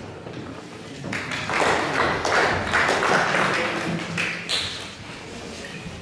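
An audience applauding briefly, about three seconds of clapping that starts about a second in and dies away.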